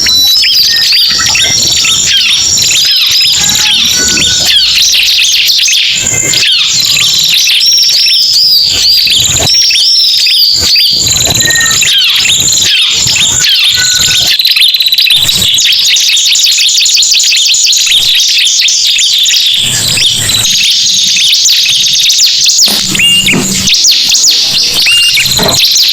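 Ciblek and prenjak prinias calling together in a loud, dense lure track: rapid high chirps, fast trills and short whistled glides overlapping without a pause.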